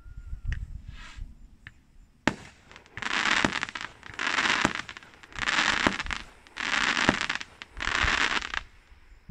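Fireworks going off. A single sharp bang comes a couple of seconds in, then five crackling bursts follow, each under a second long, about one a second.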